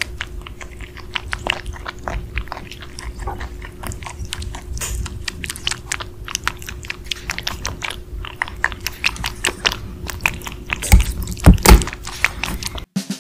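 A young rabbit biting and chewing cherry tomatoes: a quick run of wet, crunchy clicks, with two louder bites about eleven seconds in. The chewing cuts off suddenly just before the end.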